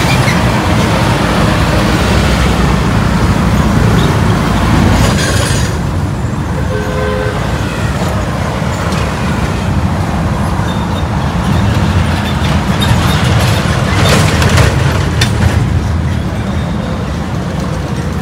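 Traffic passing on a busy main road: engine and tyre noise with a heavy low rumble, swelling as vehicles go by around five and fourteen seconds in, and a short horn toot about seven seconds in.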